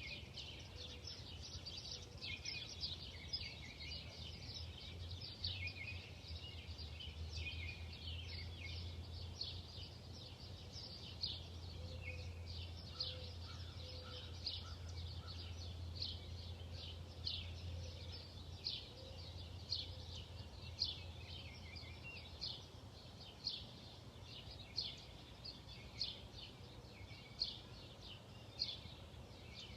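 Songbirds chirping outdoors: many short high chirps overlapping, and in the second half one loud call repeated evenly, a little more than once a second. A steady low hum runs underneath, strongest in the first half.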